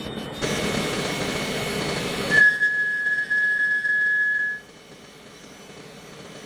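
CK46A CNC lathe cutting metal: a rushing cutting noise, then a steady high-pitched squeal for about two seconds, after which it goes much quieter.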